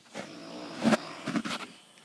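A person snoring: a drawn-out snore that swells into loud snorts about a second in and again half a second later.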